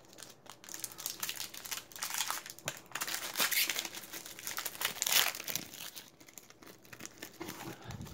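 Plastic wrapper of a 2020 Score football card pack crinkling and tearing as it is ripped open, with the loudest crinkles about three and a half and five seconds in.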